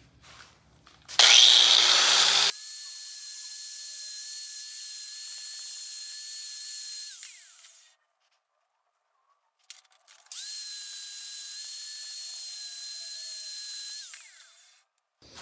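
Small electric power tool in use on the pliers: a loud start about a second in, then steady running with a high, even whine. It winds down about seven seconds in. After a short silence it starts again near ten seconds and runs until it winds down near the end.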